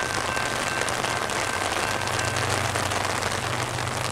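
Heavy rain falling, a steady hiss, with a faint low hum underneath.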